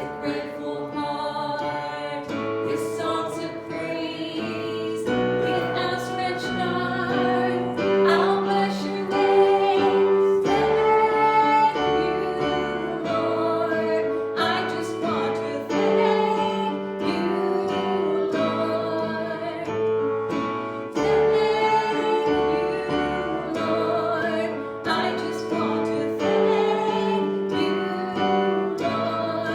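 Worship song: voices singing held notes over instrumental accompaniment, the chords changing every couple of seconds.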